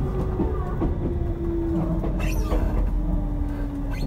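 Running sound of a Tobu 30000 series electric train heard from inside the car: a steady low rumble of wheels on rail with a traction-motor whine that slowly falls in pitch as the train slows. A few light clacks from the track are heard.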